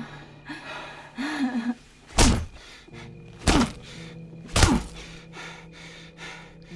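Three heavy punch thuds about a second apart, a man's fists landing on a woman in a beating, with her short pained moan just before the first blow.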